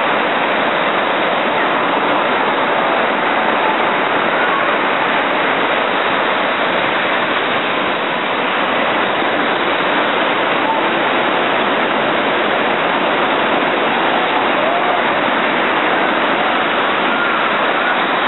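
Ocean surf breaking and washing through the shallows, a steady rushing of water, with faint distant voices now and then.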